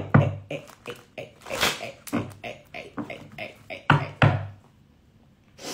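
A low, indistinct voice with taps and knocks among it, going quiet for about a second near the end.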